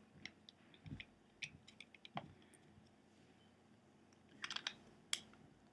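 Faint, scattered clicks and taps of hard plastic toy parts, the Eternal Tier wand's base and segment, being handled and wiggled together, with a small cluster of clicks near the end.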